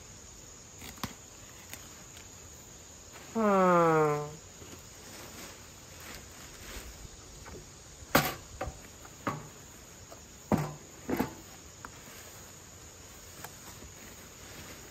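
Crickets chirring steadily. About three seconds in, a single loud call about a second long slides down in pitch, and a few sharp knocks come later.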